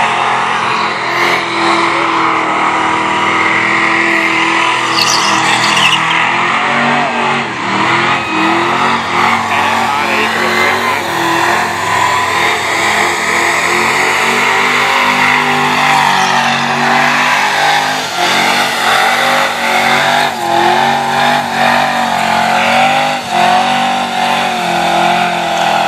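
Chrysler Valiant's 360 V8 held at high revs in a burnout, its rear tyres spinning. The engine note rises and falls over and over as the throttle is worked, with the rush of the tyres beneath it.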